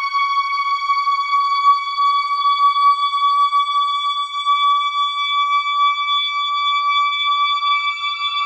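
Synthesized horror suspense tone: a steady, high-pitched whine with a stack of overtones. A second, slightly higher tone joins it about seven seconds in.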